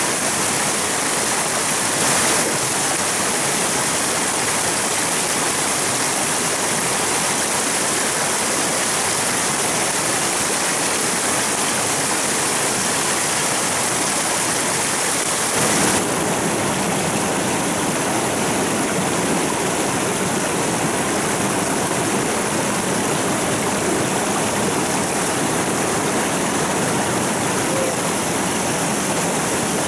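Steady rush of flowing water from a stream. Its tone shifts about halfway through, becoming fuller and less hissy.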